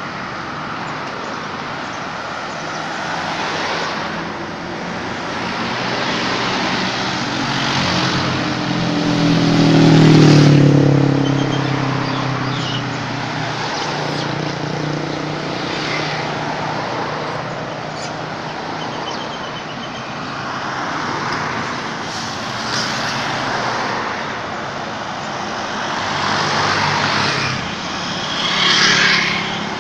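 Road traffic: a steady wash of passing vehicles, with one engine passing close and loud about ten seconds in, and another swell of traffic near the end.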